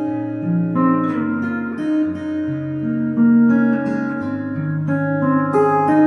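Gwood GMR C acoustic guitar, capoed and played fingerstyle: a picked melody over ringing bass notes. It is heard through a Sunrise S2+ soundhole pickup blended with a K&K Pure Mini, played through a Fishman Loudbox Mini amp.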